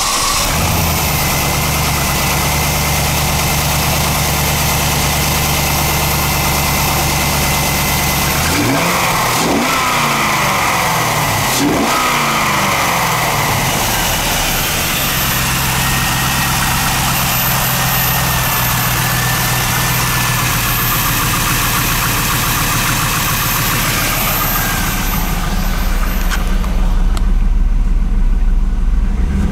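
2000 Camaro Z28's 5.7-litre LS1 V8 idling steadily, revved up and back down a few times about nine to thirteen seconds in, then settling back to idle. Near the end it is heard from inside the cabin and sounds duller.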